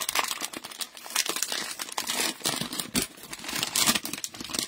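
Cellophane wrapper of a trading-card cello pack crinkling in a fast, irregular run of crackles as gloved hands tear it open and pull out the cards.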